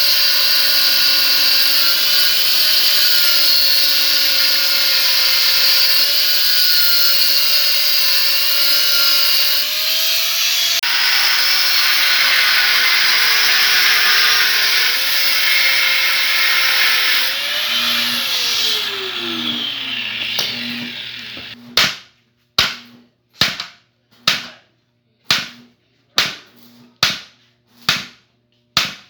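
A small motor runs loudly with a wavering pitch, then winds down, falling in pitch. After a short gap comes a series of sharp, evenly spaced knocks, a little over one a second.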